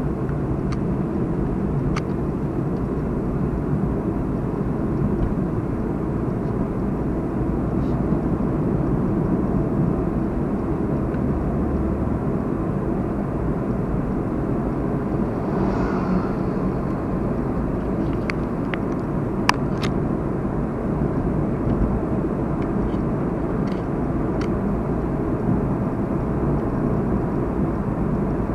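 Steady low rumbling background noise, with a few faint clicks and ticks scattered through it.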